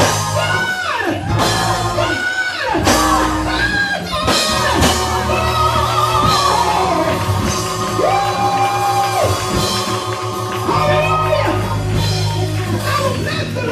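Live gospel praise music: a singer over a band with a drum kit, with long held notes and a steady low part underneath.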